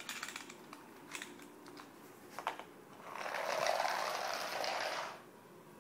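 Clockwork motor of a wind-up toy mouse whirring for about two seconds, then cutting off suddenly, after a few scattered clicks and taps.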